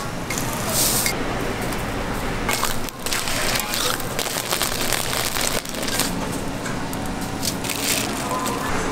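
Toast being made at a street-food stall: irregular crunching knocks and scrapes.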